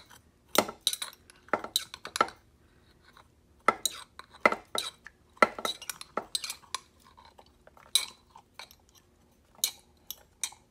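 Glass jar of pepperoncini clinking and tapping as the peppers are worked out of it and dropped into a slow cooker: a string of short, sharp, irregular clinks with brief pauses between them.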